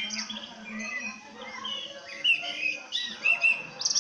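Several songbirds chirping and whistling in a dense chorus of short calls and quick pitch glides, played back through one phone's speaker and recorded by another. The sharpest calls come a little past halfway and just before the end, over a faint low hum.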